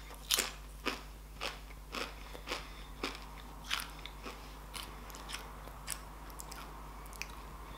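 A mouthful of thin, crisp oven-baked tortilla chips being chewed, a steady run of sharp crunches about two a second that grows fainter and sparser toward the end as the mouthful is eaten down.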